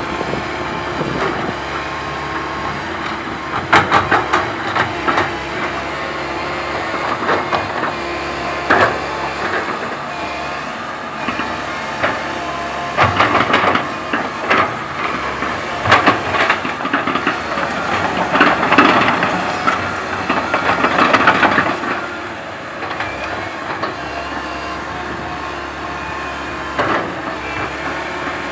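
Komatsu PC130 hydraulic excavator at work: its diesel engine runs steadily under hydraulic load, with a hiss and bursts of metallic clanking and squealing several times, loudest around the middle.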